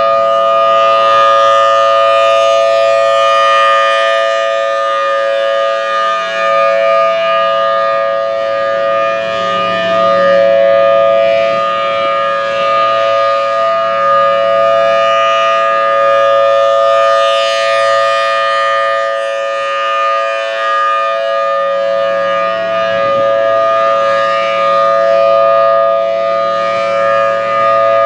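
Federal Signal Thunderbolt 1000T rotating warning siren sounding its steady alert at full speed during a test, holding a loud two-tone chord. Its loudness swells and dips slightly as it runs.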